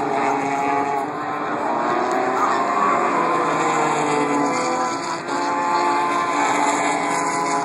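Several racing car engines running on the track, their overlapping notes rising and falling in pitch as the cars accelerate and slow through the corners.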